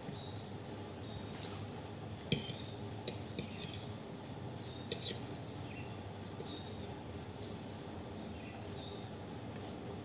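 Metal spoon and fork clinking and scraping against a plate while eating: a few sharp clinks between about two and five seconds in, over a faint steady background.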